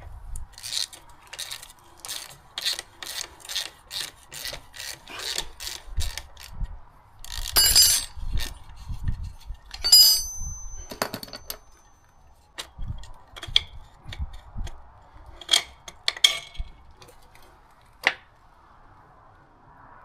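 Rhythmic hand scrubbing strokes, about three a second, as dirt is cleaned off a motorcycle part. These are followed by a few louder metallic knocks and clinks of tools and parts, one of which rings briefly.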